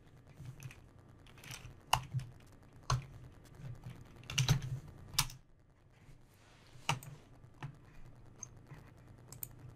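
Computer keyboard being typed on: scattered single keystrokes at irregular intervals, with short pauses between them.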